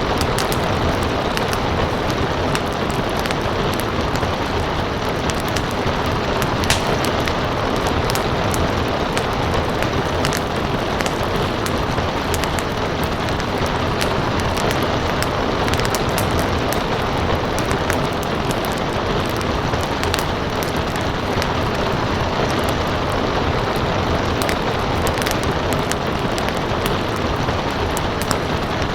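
Steady hiss of rain mixed with a crackling wood fire, its small sharp pops and snaps scattered irregularly all through.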